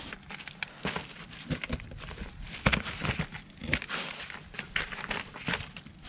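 A knife cutting and scraping a raw chaga (birch conk) on a plastic cutting board, with the plastic bag around it crinkling: irregular short scrapes and crunches with no steady rhythm.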